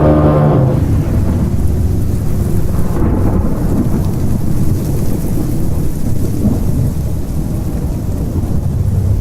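Deep, continuous low rumble of a horror ambience sound effect, like distant thunder. A low droning horn-like tone fades out within the first second.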